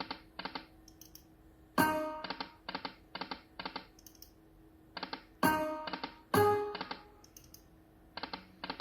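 Lightning Cash slot machine spinning three times: each spin opens with a short pitched chime, then the five reels stop one after another with a quick run of evenly spaced clicks, about three a second. A faint steady hum runs underneath.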